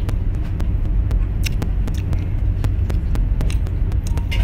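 Steady low rumble under a run of light, irregular clicks as wooden chopsticks tap and scrape in a divided plastic takeout lunch box.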